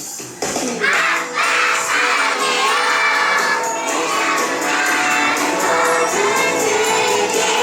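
A song playing with jingle bells, with a group of young children singing together.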